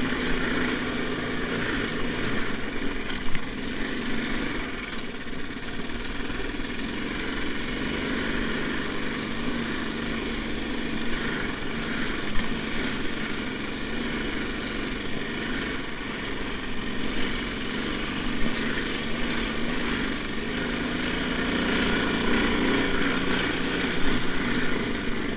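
Snow bike's 9 hp Lifan single-cylinder four-stroke engine running steadily under way. It gets louder for a few seconds near the end, and there are two brief sharp knocks.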